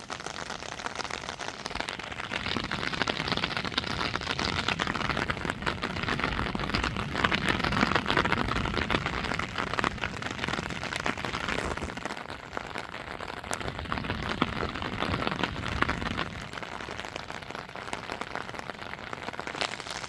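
Heavy rain pattering on surfaces: a dense hiss of drops that grows louder through the middle.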